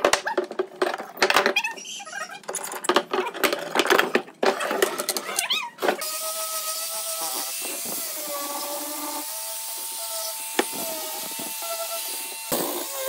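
Sharp clicks and knocks of woodworking clamps being set and tightened on a pine box. About six seconds in, this gives way abruptly to an angle grinder with a sanding pad running steadily, a high hiss with a whine that wavers slightly as it sands the wood.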